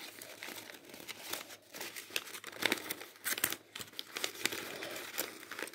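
Folded origami paper rustling and crinkling in the hands as modules are fitted together, in irregular short crackles.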